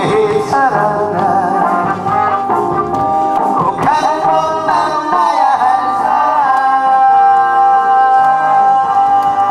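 A male singer singing into a microphone over an instrumental backing, his melody wavering at first and then settling into one long held note for the last few seconds.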